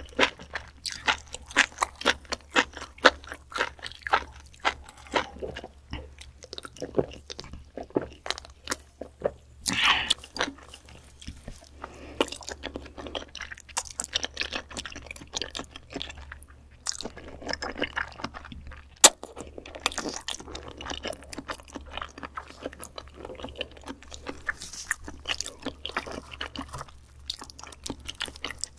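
Close-miked chewing and wet mouth sounds of eating raw beef spinal cord, a dense run of rapid clicks and smacks, with one sharper click about two-thirds of the way through.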